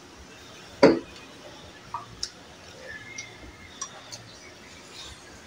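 Chopsticks and a spoon knocking and clinking against a ceramic soup bowl while eating noodles: one sharp knock about a second in, then a few lighter ticks.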